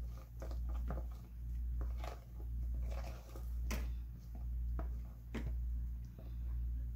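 Kitchen tongs scraping and tapping as diced chicken is pushed off a paper plate into a salad bowl: scattered light clicks and scrapes. Under them runs a low hum that swells and fades about once a second.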